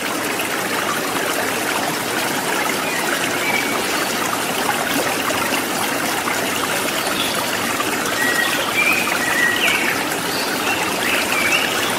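Steady rushing of a flowing stream, with a few short, high bird chirps over it, mostly in the second half.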